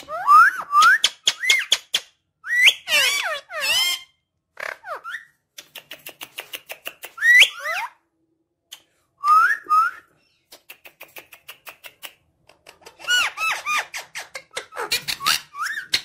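Indian ringneck parakeet whistling and chattering: short rising whistled notes mixed with runs of rapid clicks, coming in bursts with brief pauses between them.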